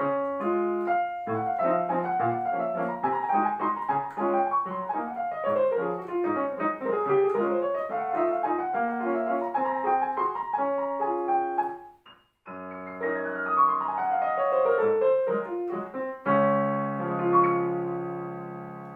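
Digital piano played fast, with quick running notes, then a brief break about twelve seconds in. A long falling run follows, and the piece closes with held chords that fade away near the end.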